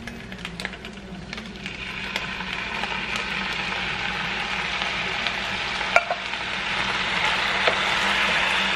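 Food sizzling in a hot pan as canned stewed tomatoes are poured onto rice and browned meat and stirred in with a wooden spoon; the sizzle builds over the first couple of seconds and holds steady. A sharp knock on the pan about six seconds in.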